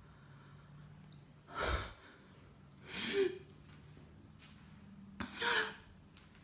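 A person breathing heavily close to the phone's microphone: three loud breaths spread over a few seconds, the middle one with a short voiced catch, over a faint steady low hum.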